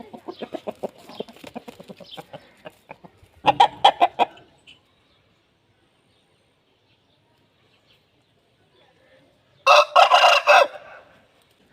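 Aseel rooster calling with rapid runs of low clucks, then a louder burst of clucking. After a few seconds of near quiet comes one short, loud, harsh call near the end.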